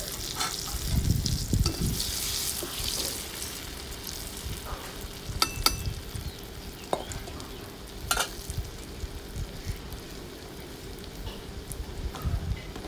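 A block of belacan (shrimp paste) sizzling in hot oil in a wok, the sizzle strongest in the first few seconds and then easing. A metal spatula stirs and scrapes, striking the wok in a few sharp clicks through the middle.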